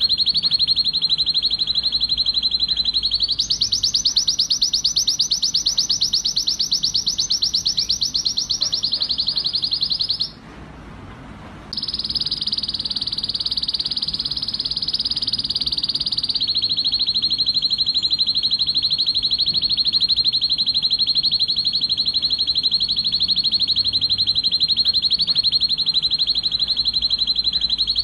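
Male canary in breeding condition singing a continuous song of fast trills. About three seconds in it switches to a higher, faster roll, and it breaks off for about a second and a half near the middle. It then resumes with a smoother roll and settles into a long, even trill.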